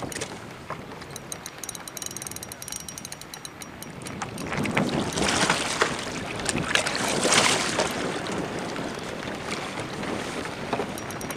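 Water splashing and sloshing around a kayak, with wind buffeting the microphone; the noise swells louder for a few seconds around the middle, with small scattered knocks.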